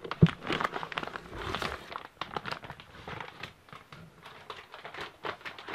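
Plastic packaging of a firework rocket assortment crinkling and rustling as it is handled and moved, with a single louder knock just after the start.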